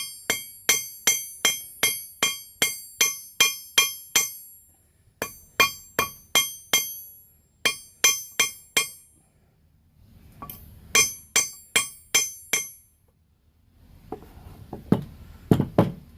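Hand hammer striking a hot horseshoe nail on a railroad-track anvil, drawing the nail out to length: runs of sharp ringing blows at about three a second, with short pauses between runs. A few duller knocks come near the end.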